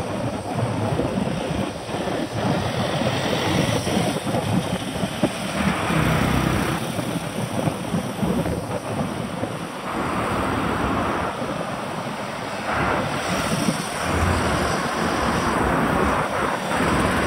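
Wind rushing over the microphone of a camera on a moving bicycle, mixed with tyre and road noise on asphalt; the rush swells and eases every few seconds.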